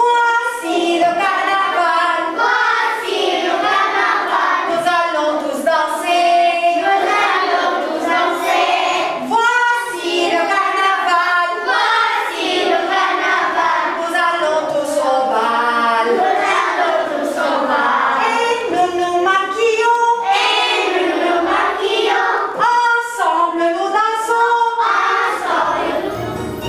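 A group of children singing a Halloween 'pumpkin carol' together, with new Halloween words set to a carol tune, in loud continuous group singing.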